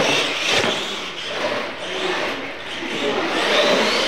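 Radio-controlled monster trucks racing, their motors whining and rising in pitch in the second half, with a few knocks as the trucks hit ramps and land.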